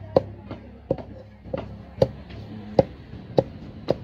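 Large knife chopping through a tilapia into a chopping block, with about eight sharp chops at an uneven pace of roughly two a second.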